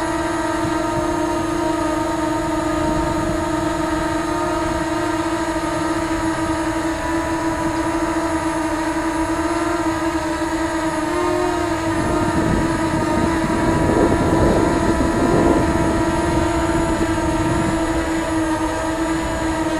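DJI Spark quadcopter hovering on Master Airscrew stealth low-noise propellers: a steady propeller buzz made of several held tones, with still a little of the angry-bee sound. A louder low rushing noise comes and goes past the middle.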